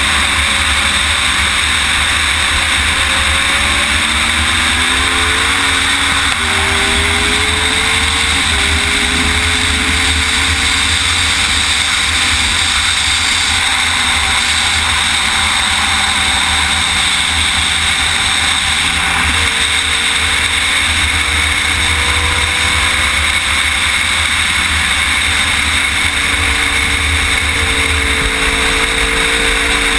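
Sportbike engine at speed on a race track, heard from an onboard camera under heavy wind rush. The engine pitch climbs and drops back several times in the first ten seconds as the rider shifts up, then holds and eases off through the corners.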